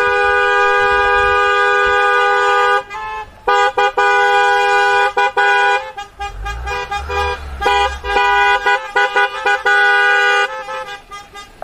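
Car horns honking in a celebratory convoy. There is a long sustained blast for the first few seconds, then a run of shorter on-and-off honks and another long blast near the end.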